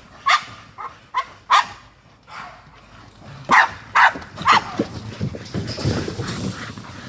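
American bully dogs barking: short, sharp barks, four in the first two seconds and three louder ones around the middle.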